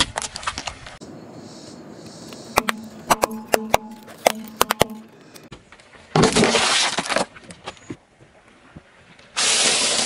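Things crushed one after another under a car tyre. First a run of sharp cracks and crackles as a Smarties tube and its sweets are flattened. Then a noisy burst of about a second as a plastic shampoo bottle gives way, and near the end a loud crunch of stacked wafers.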